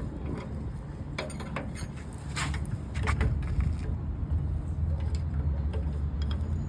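A steady low hum with scattered short clicks and knocks, most of them between about one and three and a half seconds in.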